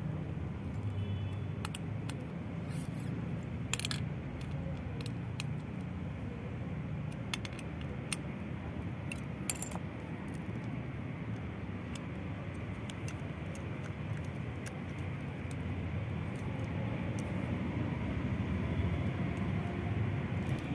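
Small metallic clicks and taps from a small-engine carburettor and its parts being handled and fitted by hand, scattered mostly through the first half, over a steady low background rumble.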